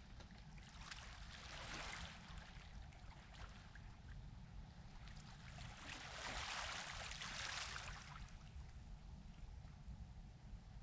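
Faint small waves washing in on the beach, two soft swells of hiss as they break and draw back, over a low steady rumble.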